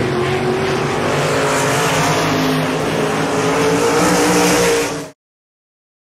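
Two winged sprint cars' V8 engines racing past, loud, with the pitch climbing slightly; the sound cuts off abruptly about five seconds in.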